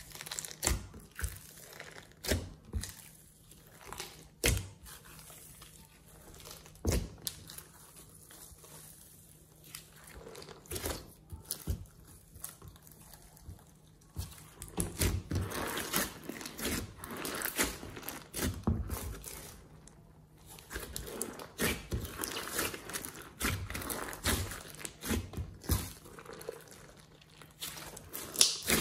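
Glossy slime mixed with glitter and sequins being kneaded and squeezed by hand in a glass dish: sticky clicks and small pops, sparse at first, then a denser run of squishing from about halfway through.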